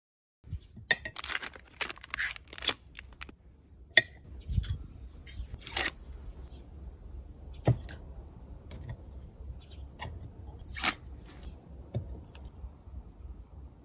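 Handling noises from hands working with a thermoelectric module and metal CPU cooler heatsinks. A cluster of rustles comes in the first few seconds, then scattered sharp clicks and knocks, over a low steady rumble.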